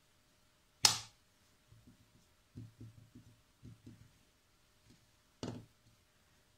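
Plastic lid of an earbud charging case snapping, twice: a sharp click about a second in and another near the end. Between them, soft taps of the case being handled.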